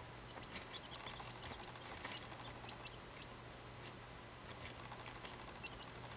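Quail chicks peeping faintly: short, high, scattered cheeps and ticks over a steady low hum.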